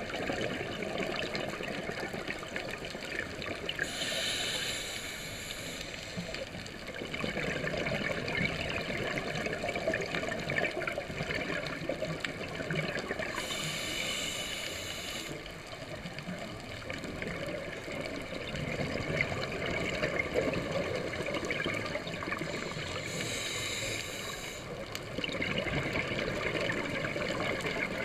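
Scuba diving underwater: a diver breathing through a regulator, heard through the camera housing. A hiss comes three times, about ten seconds apart and lasting about two seconds each, with a steady bubbling wash of exhaled air between.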